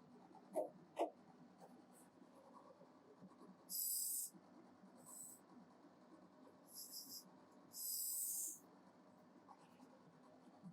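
Pen strokes drawing a diagram: a few scratchy strokes of about half a second each, the longest a little after the middle, after two light knocks about a second in.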